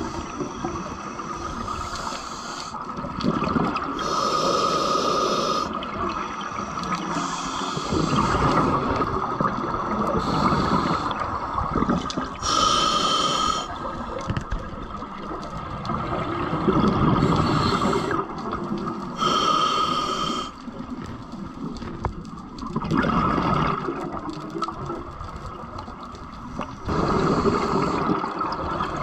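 Open-circuit scuba regulator breathing underwater: slow breaths several seconds apart, each a hissing in-breath through the regulator followed by an out-breath that comes out as a rush of bubbles.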